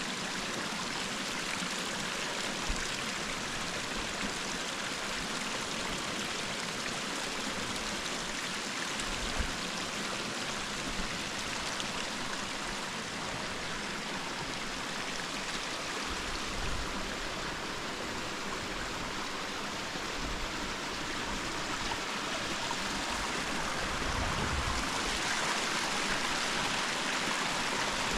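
Steady rush of a mountain stream flowing over rocks, growing a little louder near the end.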